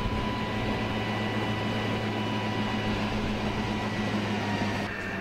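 Fire engine pump running with a steady low hum, under the hiss of a fire hose spraying water.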